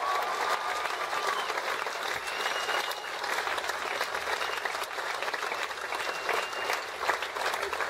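Audience applauding steadily, with a couple of brief high whistles from the crowd.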